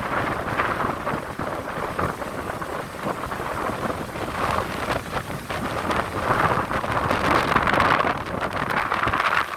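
Hurricane wind and rain in gusts, with wind buffeting the microphone into a low rumble; the gusts grow louder near the end.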